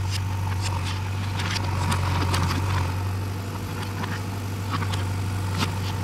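JCB 3DX backhoe loader's diesel engine running steadily with a low, even hum, with a few light clicks and knocks scattered over it.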